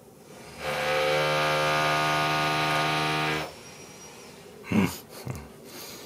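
Pro Moser 3000 W hair dryer switched on briefly: its motor and fan run with a steady pitched whine over a rush of air for about three seconds, then cut off sharply. A short knock follows near the end.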